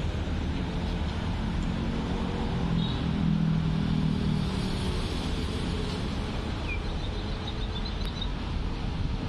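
Steady urban traffic rumble with wind on the microphone. A motor engine hums louder as it passes, about three to four seconds in.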